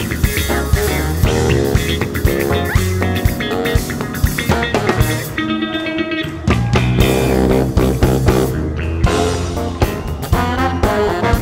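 Live jazz-funk band playing, heard close to the drum kit: drums, electric bass, Fender Rhodes electric piano and horns (saxophone and trombone). About halfway through, the drums and cymbals stop for about a second while a held note rings, then the full band comes back in.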